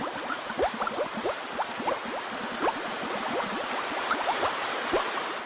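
Water trickling and bubbling over stones: a steady hiss with many short rising bubble plinks, a few each second. It cuts off abruptly near the end.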